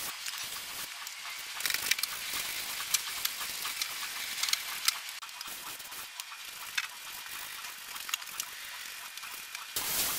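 Modified Daiso hand-pump pressure sprayer spraying thick foam onto a car's rocker panel and underside: a steady hiss with foam and drips pattering onto wet concrete. Near the end it changes to a garden-hose shower nozzle spraying rinse water, a louder, fuller spray.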